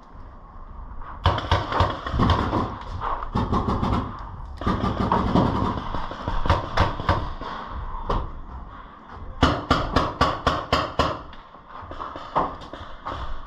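Paintball markers firing in rapid strings of sharp pops, roughly five shots a second at their fastest, in three bursts with short gaps between.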